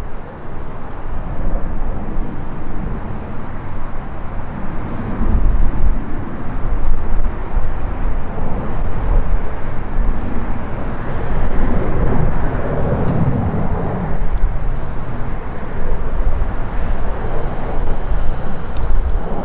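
Twin-engine widebody jet airliner on its take-off roll, the engines at take-off thrust giving a steady, loud rumble that swells about halfway through.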